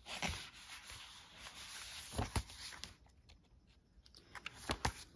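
Soft rustling and sliding of paper pages as a handmade junk journal is leafed through, with a few sharp little taps of the pages and cards being handled.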